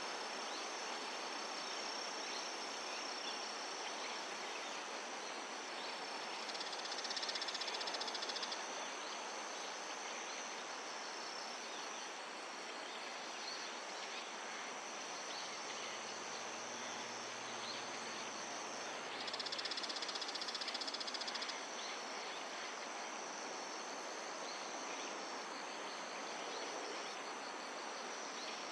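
Steady high trilling of crickets and other insects, with two louder, rapidly pulsed buzzes of about two seconds each: one about a quarter of the way in, the other about two-thirds through.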